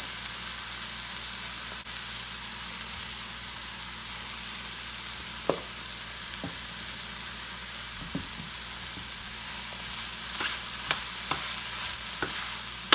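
Stir-fried vegetable filling sizzling in a stainless steel frying pan, a steady hiss. The filling is nearly cooked and just seasoned with pepper and salt. Occasional sharp metal clinks come more often in the last few seconds as the filling is stirred with a metal spoon.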